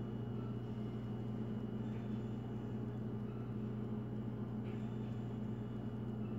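Steady low electrical hum of running household appliances, with a faint click or two.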